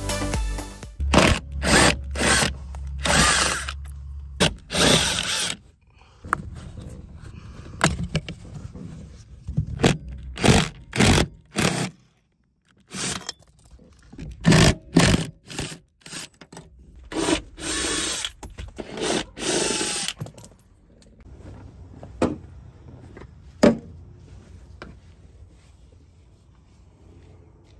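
Hand-held power tool, such as a drill or driver, run in short bursts that stop and start, with scraping between some of them, during work on a car interior.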